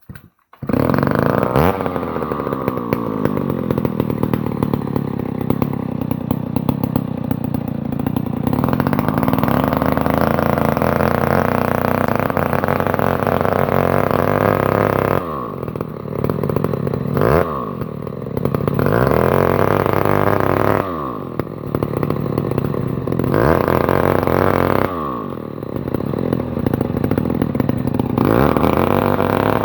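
Stihl 070 two-stroke chainsaw running hard at high revs on a fuel mix with too much oil. Several times the throttle drops and the engine speed sags, then revs back up.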